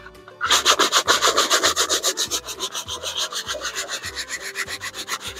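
Stiff hand brush scrubbing degreaser-foamed steel around a bush hog's gearbox, in quick, even back-and-forth strokes of about six a second, starting about half a second in.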